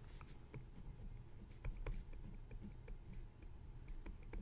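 Faint, irregular clicks and light scratches of a pen writing on paper.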